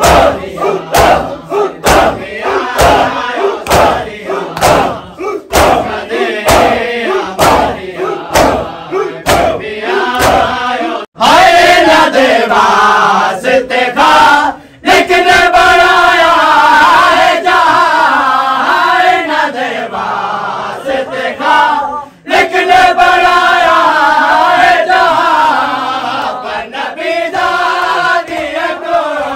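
Crowd of mourners beating their chests (matam) in a steady beat, with men's voices chanting along. About 11 seconds in this breaks off abruptly. A group of men then recite a nauha lament together, singing in unison.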